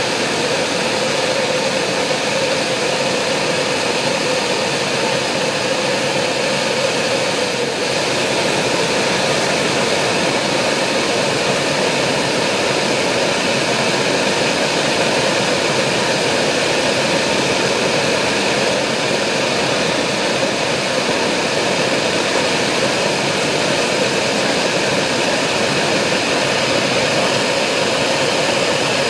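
Propane hand torch burning steadily, a loud even rush of flame, while it heats a copper pipe joint being brazed with a silver solder rod.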